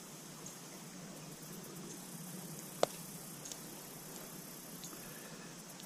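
Faint, steady rush of stream water, with one sharp click about three seconds in.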